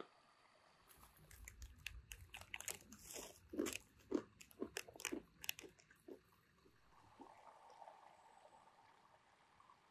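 A person chewing salted peanuts close to the microphone: a quick, irregular run of crunches for about five seconds, which then stops.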